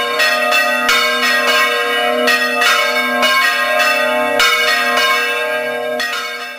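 Church bells pealing: bells struck over and over, each strike ringing on in long overlapping tones, fading out near the end.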